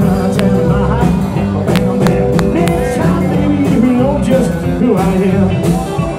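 Rockabilly band playing live, an instrumental stretch with no vocals.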